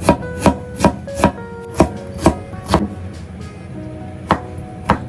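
Chinese cleaver chopping fresh ginger on a wooden cutting board, with sharp knocks about two a second. Seven chops, a short pause, then two more near the end.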